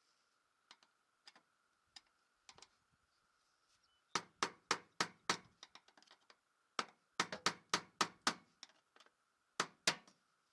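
Hammer driving a screwdriver against the metal lock ring on top of a fuel tank's pump assembly to knock it loose counterclockwise. A few light taps come first, then three runs of sharp metal strikes: about five, then six, then two.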